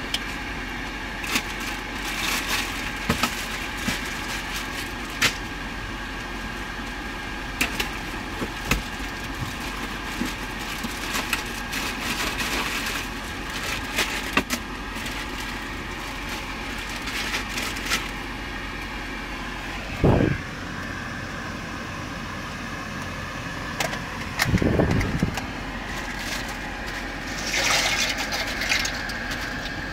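Steady drone of the boat's engine, with scattered clicks and knocks of kitchen items being handled and two louder thumps about twenty and twenty-five seconds in. Near the end, a rustling hiss as the contents of a plastic bag are poured into a cooking pot.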